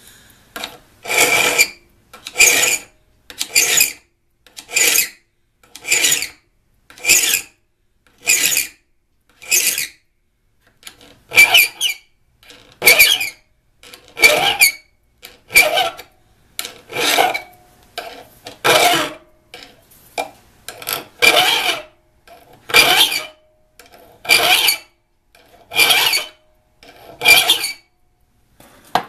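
Hand file scraping across the steel cutting edge of a spade drill bit in steady push strokes, about twenty of them a little over a second apart, with a brief pause about ten seconds in. This is the bit being sharpened, the file held at a 10 to 15 degree angle until the edge is shiny.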